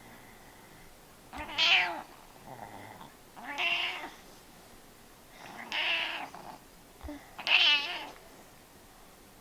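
Stuffy-nosed snoring: four loud, squeaky, whistling snores about two seconds apart, one with each breath, with quieter breathing between them. The nasal congestion gives the snores their whistling pitch.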